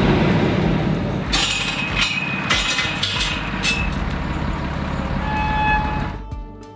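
Pickup truck running, heard from inside the cab, with a steady rumble and road noise and a few sharp rattling clatters. Music comes in near the end.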